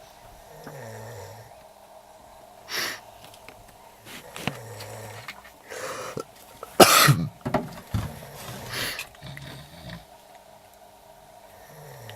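Snoring: a low drawn breath every two to three seconds, with a loud snort about seven seconds in.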